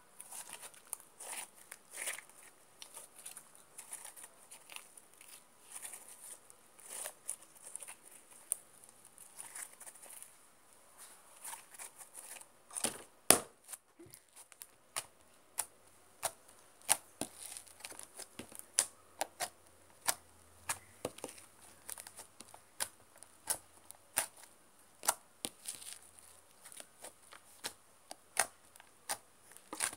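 Slime being squeezed, stretched and poked by hand, giving many small irregular clicks and pops, with one louder pop a little before halfway.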